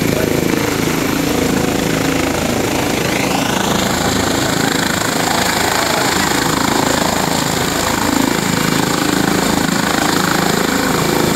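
Eurocopter EC135 twin-turbine helicopter lifting off: steady rotor and engine noise, with a high turbine whine that rises about three seconds in and then holds steady.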